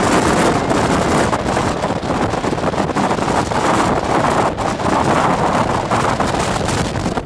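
Strong gale-force wind buffeting the microphone: a loud, continuous rush of noise that swells and dips with the gusts.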